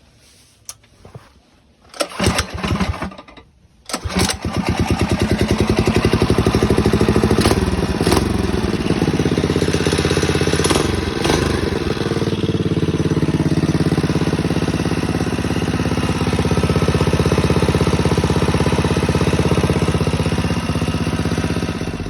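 Single-cylinder Predator 212 minibike engine starting: a couple of short bursts of noise, then it catches about four seconds in and runs steadily through an unbaffled header exhaust, its pitch shifting briefly around ten seconds in.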